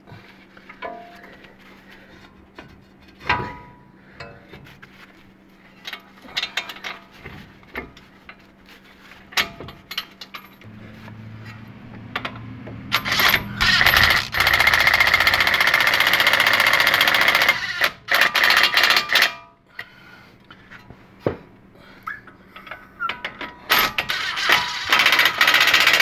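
Impact wrench tightening bolts on a front brake assembly: it spins up, then hammers for about four seconds, and hammers again in a shorter run near the end. Metal tool and parts clinks come before it.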